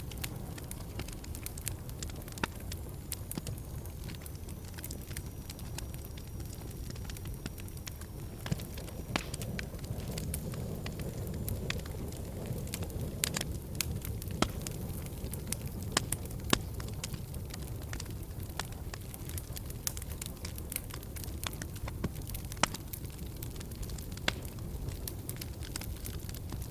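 Wood fire burning in a fireplace: a steady low noise of flames under frequent, irregular sharp crackles and pops.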